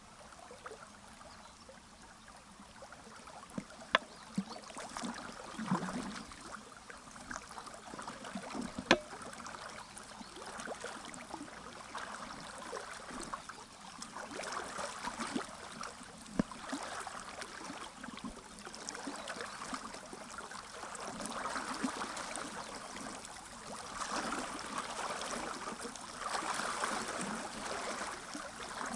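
Fast mountain river water rushing and splashing, growing louder in the second half, with a few sharp clicks, the loudest about 4 and 9 seconds in.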